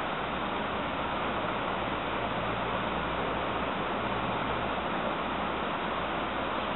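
Steady hiss with a faint low hum underneath: constant background noise with no distinct events.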